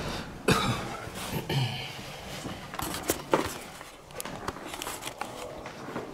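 Irregular knocks and clicks, with sharp knocks about half a second in and a little past three seconds in, the second the loudest, and smaller clicks after.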